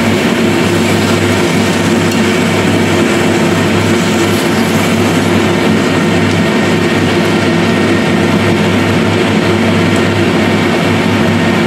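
Chicken wings sizzling steadily in hot oil in a non-stick wok as they are turned with chopsticks, over a constant low hum.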